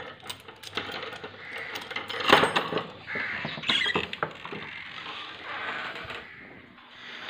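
Keys, a padlock and the metal door chain rattling and clicking as the lock is opened, with the loudest clattering rattle about two seconds in, then the old wooden door being pulled open. Crows caw in the background.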